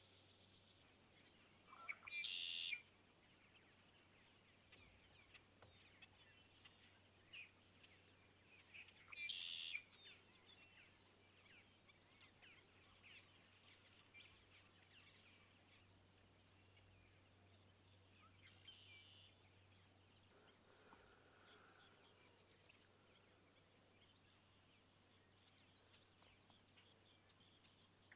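Faint insect chorus, a steady high-pitched buzz with a quick pulsing trill under it, while a bird gives short calls twice, about two and nine seconds in.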